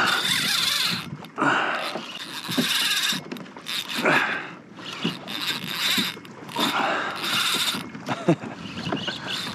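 Fishing reel whirring in repeated bursts, each about half a second to a second long, during the fight with a hooked bonito.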